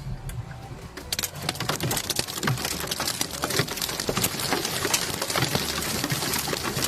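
Water from a ruptured sewage pipe spattering down like heavy rain: a dense, steady patter of many small hits on surfaces, getting thick about a second in.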